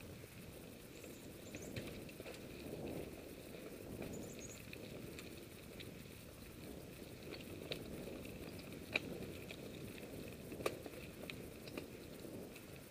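Mountain bike rolling along a dirt singletrack: steady tyre and wind rumble with scattered sharp rattles and clicks from the bike over bumps, the loudest about nine and eleven seconds in.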